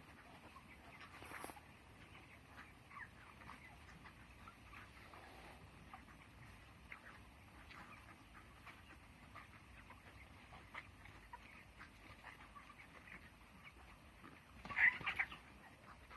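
A flock of broiler chickens, 23 days old, calling faintly with many short, scattered chirps and clucks, and a louder cluster of calls about fifteen seconds in.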